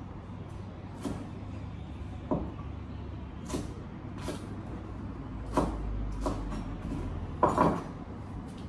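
A kitchen knife knocking on a cutting board as vegetables are cut, in scattered single knocks roughly a second apart, over a steady low hum.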